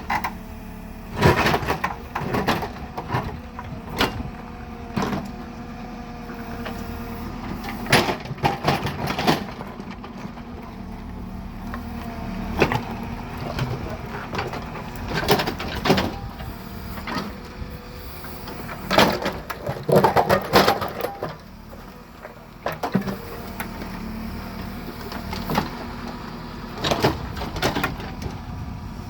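Diesel engine of a JCB 3CX backhoe loader running steadily while working, with sharp knocks and rattles every second or two.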